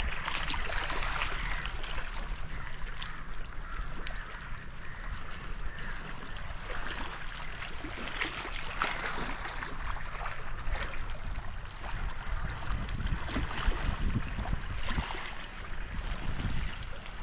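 Shallow sea water lapping and trickling among shoreline rocks, a steady hiss with low wind rumble on the microphone underneath.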